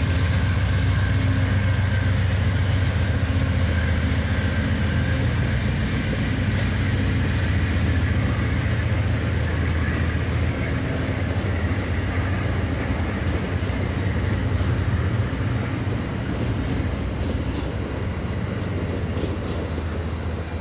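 Passenger train coaches rolling past, a steady rumble of wheels on rail with light clicking, slowly fading near the end as the last cars go by.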